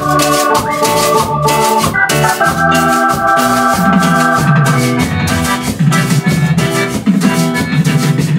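Cumbia dance music: a keyboard melody of held notes over bass and drums with a steady beat.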